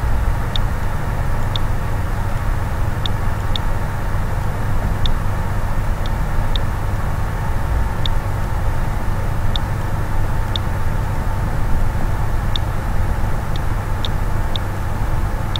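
Light computer-mouse clicks, irregularly about once a second, over a steady low hum and hiss of background noise.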